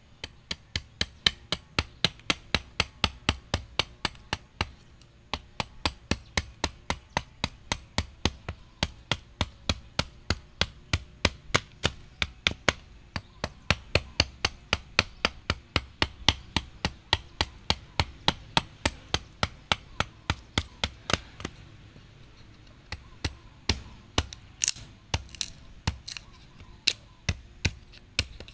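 A small hand axe chopping repeatedly into the edge of a wooden board, sharp knocks at about three a second. The chopping stops briefly twice, about five seconds in and again around twenty-two seconds in.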